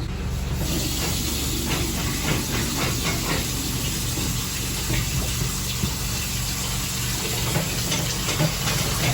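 Steady rushing hiss of water that starts just after the opening and runs on evenly, over a steady low hum, with a few faint clicks.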